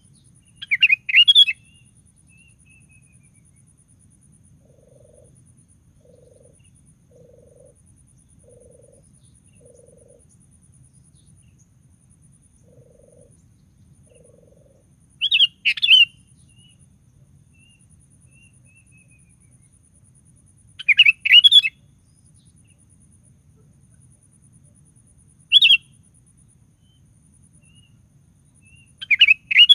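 Sooty-headed bulbul (kutilang) singing short, loud, bubbly phrases, five of them spaced several seconds apart, with quiet gaps between.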